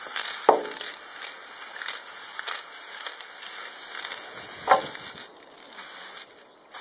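Aerosol spray paint can hissing in one long continuous spray onto a wall, stopping about five seconds in, then two short puffs of spray near the end. Two brief sharp sounds stand out, under a second in and again shortly before the spray stops.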